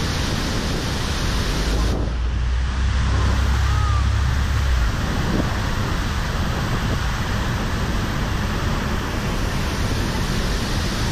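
The Rhine Falls' water thundering down, heard from a boat in the churning white water below it: a loud, steady rushing roar. A deep low rumble sits under it for the first few seconds.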